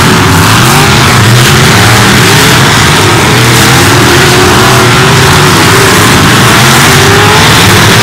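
Figure-8 derby cars racing, several engines revving at once. The loud, unbroken mix of engine notes rises and falls over one another as the cars speed up and slow down.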